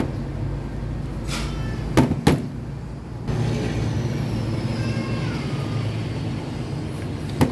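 Sharp knocks of engine parts being handled as a piston and connecting rod are fitted into the engine block, two close together about two seconds in and one near the end. A steady low vehicle rumble runs underneath.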